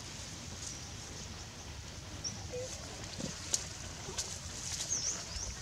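Quiet outdoor ambience with a few faint, short high chirps and scattered light rustles and clicks of dry leaves.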